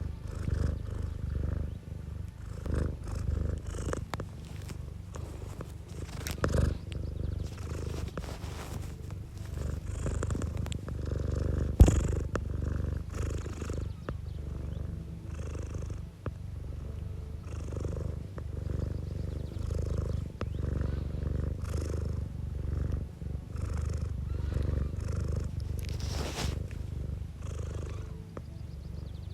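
Domestic cat purring, a steady pulsing rumble, with a single sharp click about twelve seconds in.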